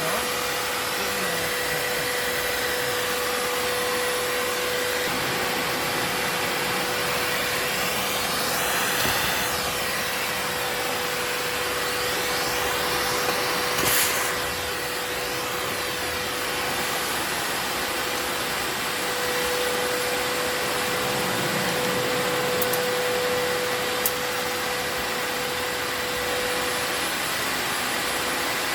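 Vacuum cleaner running steadily with a constant whine, used to suck hornets from a nest. The airflow swells briefly a couple of times, and there are a few sharp ticks.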